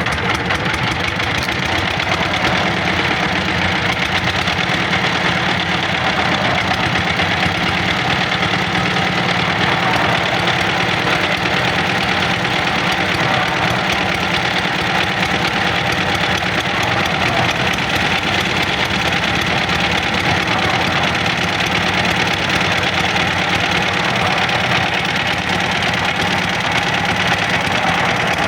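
Engine of a self-loading concrete mixer running steadily at a constant speed, with a fast, even knocking pulse.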